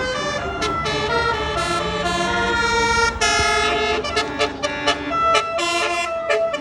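Indonesian tour bus's 'telolet' Basuri multi-tone air horn playing a tune: a quick run of short, loud toots that step between pitches, with a faint low engine drone underneath.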